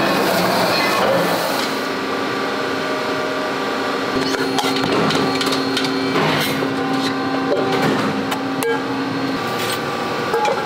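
Factory floor noise: a steady machine hum with scattered clinks and knocks of aluminium pans being handled.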